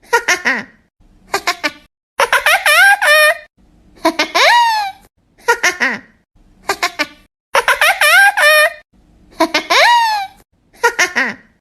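High-pitched laughing voice, coming in repeated bouts of quick "ha-ha" pulses that end in rising-then-falling squeals, about every second or two.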